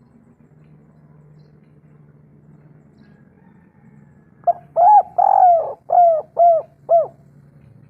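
Spotted dove cooing: a phrase of about six pitched coo notes beginning about halfway through, the second or third note drawn out longer and the last three short and evenly spaced. A faint low hum runs underneath before the song starts.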